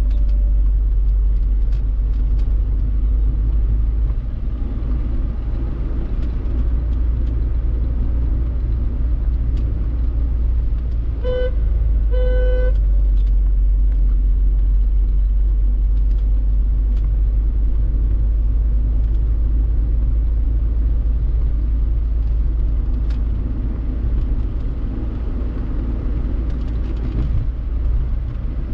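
Steady low road and engine rumble of a Peugeot 406 being driven, heard from inside. About eleven seconds in, a vehicle horn gives a short toot and then a slightly longer one.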